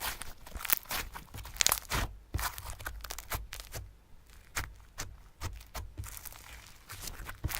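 Hands squeezing and stretching slime: an irregular run of sticky clicks and crackles, thinning out for a couple of seconds near the middle.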